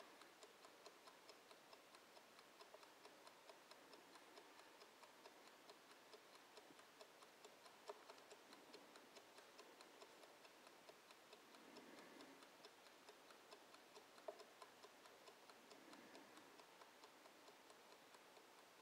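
Faint, steady ticking of a wind-up mechanical kitchen timer counting down, about three to four ticks a second, with two sharper clicks about eight and fourteen seconds in.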